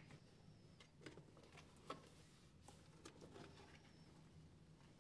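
Near silence with faint, light clicks and taps, roughly one a second.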